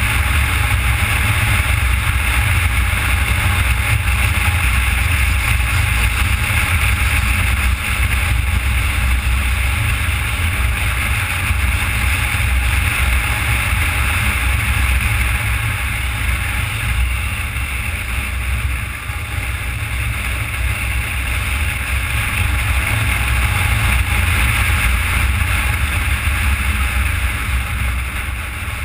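A motorcycle ridden steadily at road speed: a constant low drone with wind rushing over the bike-mounted camera's microphone.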